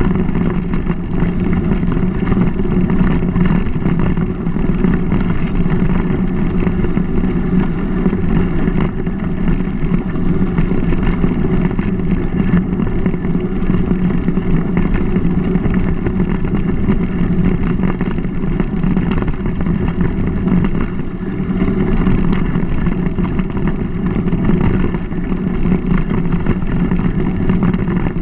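Steady rumbling road noise of a mountain bike rolling along a dirt towpath, heard through a GoPro's microphone: tyre rumble on the packed dirt mixed with wind on the microphone.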